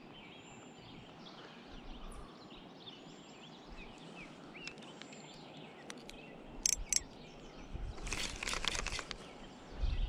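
Steady flow of a stream with birds chirping. A couple of sharp clicks come about two-thirds of the way in, and a second-long burst of rapid clicking or rattling comes near the end.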